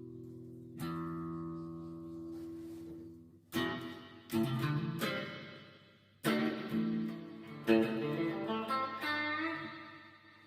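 Electric guitar played through a Venom reverb effect. A chord struck about a second in rings out, then chords and single notes are picked from about three and a half seconds on, each trailing off in a long reverb tail and fading away near the end.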